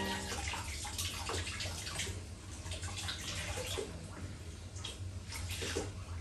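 Water running at a kitchen sink as dishes are washed, with many small clinks and splashes over a steady low hum.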